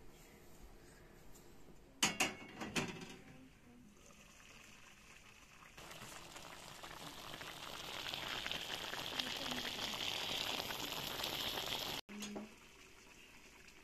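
A few clanks of cookware about two seconds in. From about six seconds on, tomatoes and peppers in sauce bubble and sizzle in an uncovered frying pan on a gas burner, growing louder, until the sound cuts off abruptly near the end.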